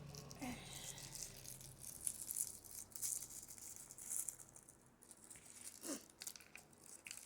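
Faint rustling and crinkling of plastic toy packaging being opened by hand, with small plastic pieces rattling and clicking at irregular moments.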